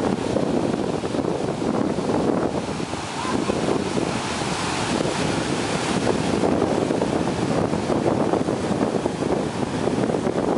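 Ocean surf breaking and washing in steadily, with wind buffeting the microphone.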